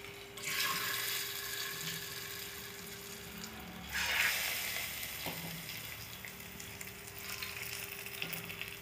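Hot oil with fried mustard seeds (the tempering) poured into curries and sizzling: a sudden sizzle about half a second in and a second one about four seconds in, each dying away.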